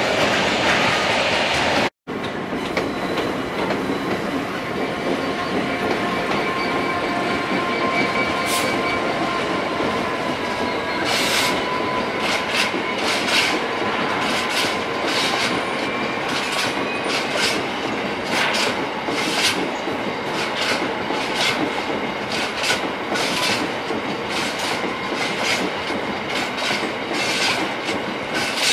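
Freight train wagons rolling past with a steady rumble. A thin, high wheel squeal is heard in the first half, then from about eleven seconds in a run of sharp clicks as the wheels pass over rail joints.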